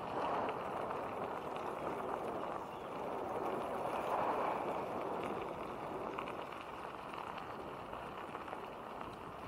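Bicycle rolling along a gravel path: a steady rush of tyre noise on the gravel mixed with wind on the microphone, swelling a little about four seconds in.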